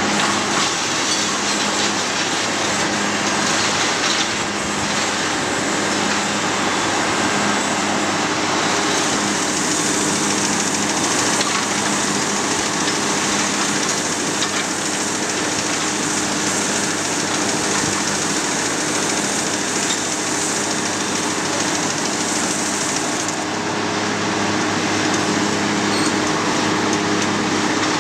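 Large fan running steadily: a constant rushing of air with a low, even hum underneath.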